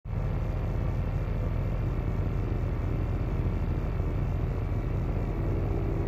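Generator running with a steady low moan, a deep even hum over a rumbling haze. A faint higher tone joins near the end.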